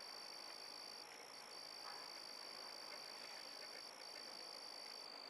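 Faint, steady, high-pitched chorus of night-calling animals, with short dips about a second in and near four seconds.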